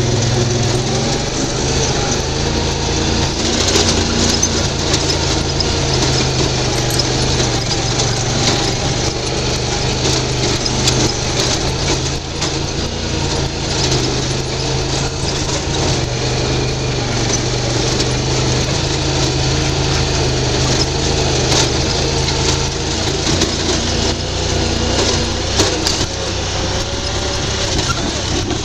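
UTV engine running steadily under load as it crawls over rough ground, with frequent short knocks and rattles from the machine.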